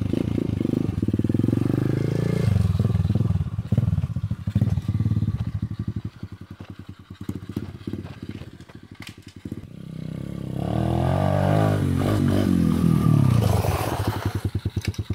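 Beretta 125 cc mini cross pit bike's single-cylinder engine revving as the bike rides off. It grows fainter as the bike moves away, then comes back louder with rising and falling revs, and settles to an even idle near the end.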